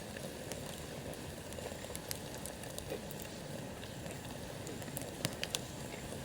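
Wood campfire burning, crackling steadily with scattered sharp pops, two louder pops about five seconds in.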